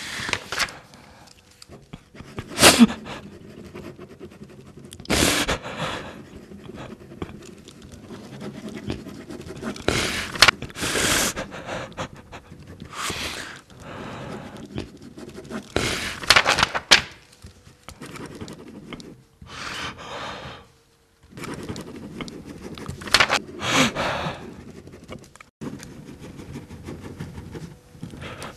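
Heavy, ragged breathing: loud, irregular gasping breaths every two to three seconds.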